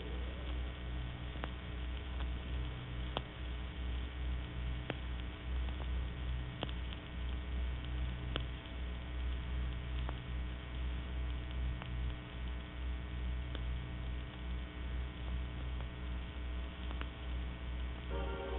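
Steady low electrical mains hum with a slight pulsing and scattered faint clicks: the background noise of an old 1930s recording, with no voice from the vocoder.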